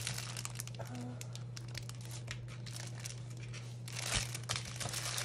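Plastic packaging crinkling as a bundle of small plastic bags of diamond-painting drills is handled: a run of soft crackles that gets busier about four seconds in, over a steady low hum.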